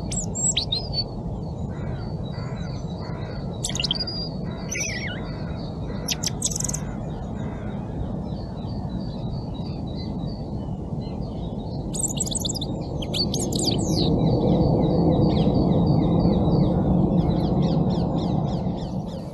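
European robin singing short phrases of high, thin notes, with a long run of evenly repeated high notes beneath them, over a steady low rumble that grows louder near the end.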